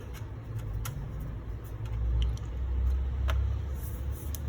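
A low rumble, swelling about two seconds in, with a few scattered light clicks and taps as a laptop cover is handled and fitted.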